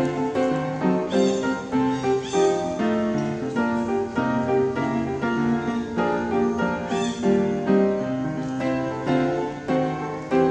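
Background piano music, a steady flowing melody with chords.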